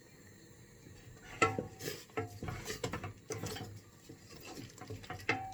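Cooking pan and utensils clattering: a run of irregular knocks and clinks, some with a short metallic ring, starting about a second and a half in.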